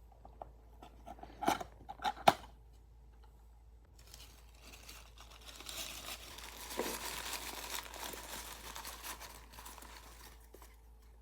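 Blind-box packaging being opened: a few sharp clicks, then several seconds of tearing and crinkling.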